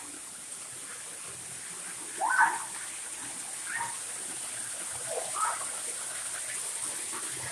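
Small cave waterfall trickling and splashing into a pool, with a few short high-pitched vocal calls over it, the loudest about two seconds in.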